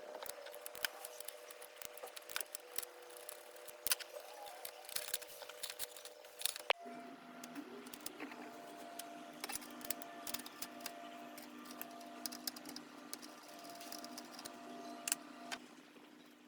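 Scattered small clicks and light taps, as of hands and tools working on the CD player's parts, over faint steady tones that change pitch abruptly about seven seconds in.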